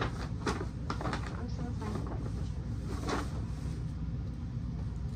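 Brown paper shopping bag rustling and crinkling as clothes are pulled out of it: a few short rustles, the loudest about three seconds in.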